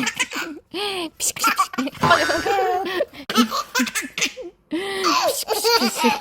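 Eight-month-old baby laughing in many short bursts, with belly laughs.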